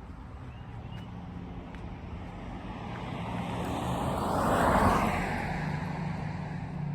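A car passing by, its road noise swelling to a peak about five seconds in and then fading away.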